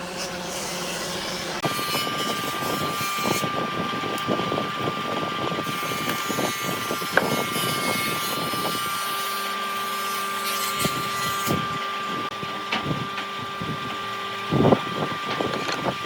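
Electric woodworking power tool running with a steady whine that comes in about two seconds in, over rough crackling and knocking as it works the wood.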